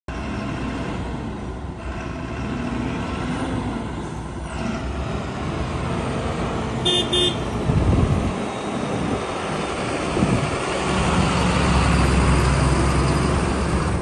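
Mercedes-Benz Axor 2529 refrigerated box truck driving up and past, its diesel engine running throughout. Two short horn toots come about seven seconds in, and the engine grows louder near the end as the truck passes close.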